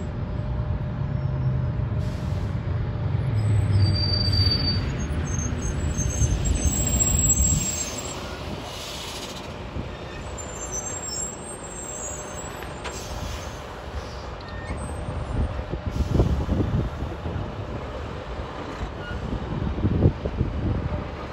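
Fire engine's diesel engine rumbling loudly as the truck pulls up and stops, dropping to a quieter idle about seven or eight seconds in, with a short hiss of its air brakes.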